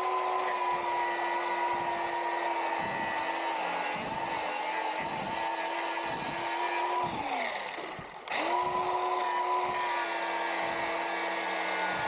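A power tool's motor running at steady speed under load, winding down and stopping about seven seconds in, then starting up again about a second later.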